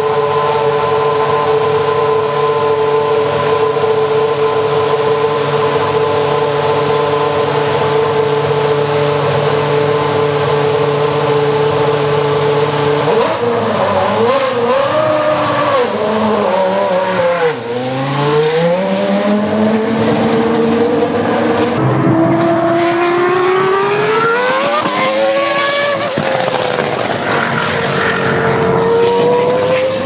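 Ferrari Formula 1 car's V10 engine running at a steady high idle, then blipped, its pitch swinging down and up, and from about two-thirds of the way in revved in long rising sweeps.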